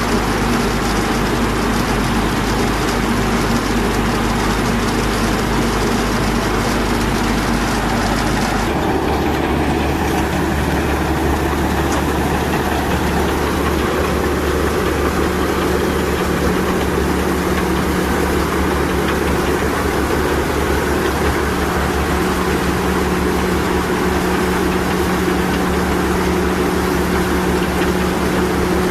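Heavy farm vehicle's engine running steadily and loudly, its speed picking up slightly about nine seconds in.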